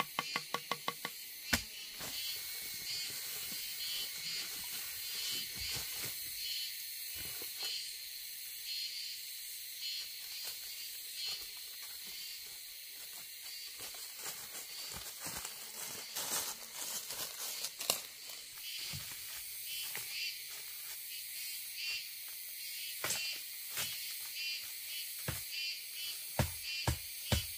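Forest insects, crickets or cicadas, keeping up a steady high pulsing chorus. Scattered sharp clicks and knocks of handling sound in, more often near the end.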